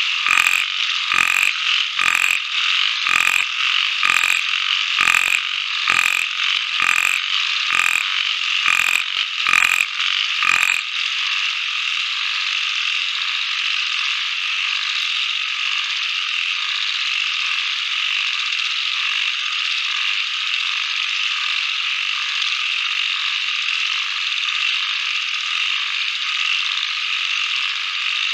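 Dense, steady chorus of calling frogs. For the first ten seconds or so a loud, regular click sounds over it about once a second, then stops.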